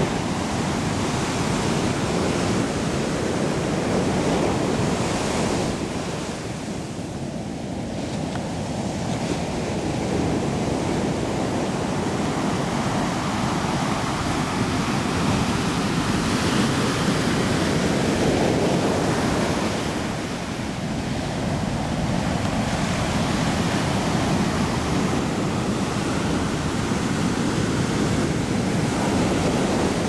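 Ocean surf breaking and washing up a sandy beach: a continuous rush that swells and eases, dipping about six seconds in and again around twenty seconds.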